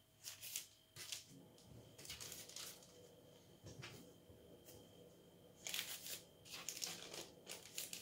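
Baking parchment on a tray crinkling and rustling faintly in short scratchy bursts, about seven of them, as pieces of bread dough are set down and shifted on it.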